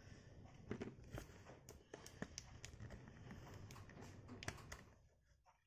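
Faint, irregular small clicks and crackles of a tablet's plastic back cover being pried loose with a plastic prying tool, fading out near the end.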